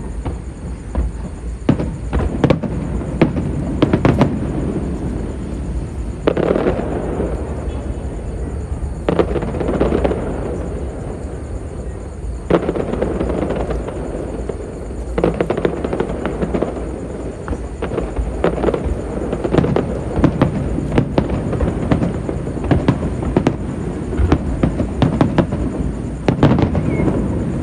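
Fireworks going off in a rapid series of sharp bangs and crackles over a continuous rumble, with denser volleys every few seconds.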